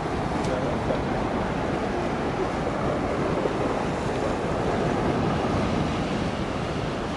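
Steady rush of storm wind and sea surf, with the wind buffeting the microphone in a low, fluttering rumble.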